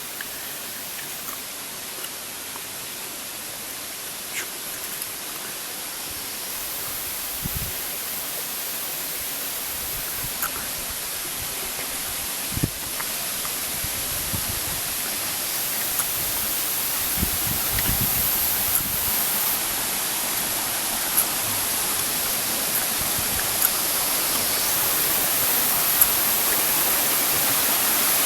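Waterfall rushing: a steady hiss of falling water that grows gradually louder, with a few short clicks and soft knocks over it.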